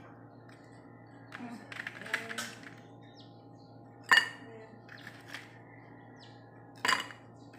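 Frozen lemon-juice ice cubes dropped from a plastic ice-cube tray into a drinking glass: a short rattle of cubes a second or two in, then a sharp ringing clink against the glass about four seconds in, and another clink near the end.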